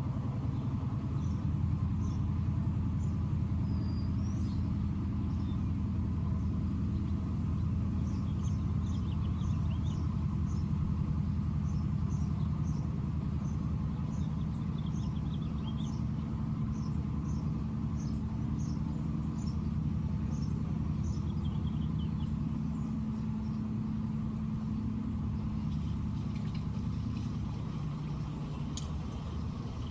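Small birds calling in a string of short, high chirps, about one or two a second through the middle stretch, over a steady low rumble with a hum, like an engine or traffic.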